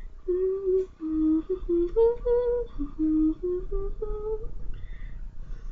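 A person humming a tune to herself, about a dozen short held notes stepping up and down. The humming stops near the end.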